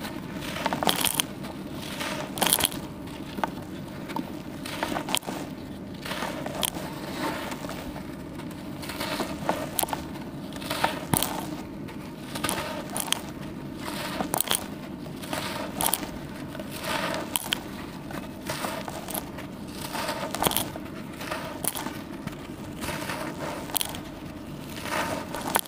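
Dusty charcoal slabs crumbled and squeezed by hand, a wet surface in places, giving irregular gritty crunches and crackles throughout. A steady low hum runs underneath.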